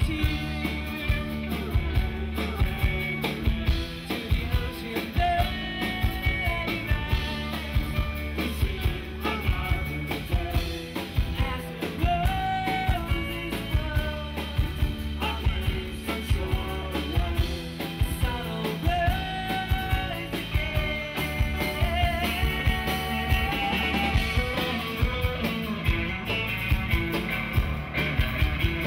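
Live rock band playing a song: drum kit, electric bass, guitars and keyboard, with a steady beat and held melody notes over it.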